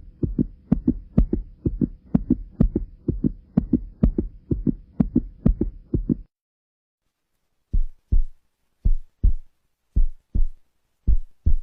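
Heartbeat sound effect: deep, fast beats for about six seconds, then, after a short pause, a slower lub-dub beat with the pairs about a second apart.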